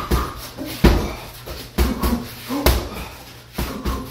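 Boxing gloves punching a hanging heavy bag: a series of heavy thuds, about one a second.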